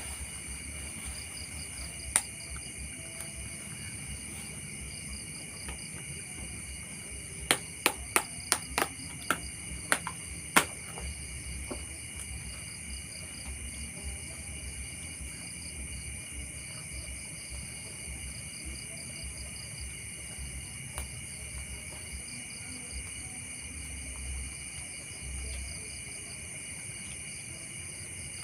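Steady chorus of crickets trilling at a high pitch. A run of about eight sharp clicks comes about seven to eleven seconds in.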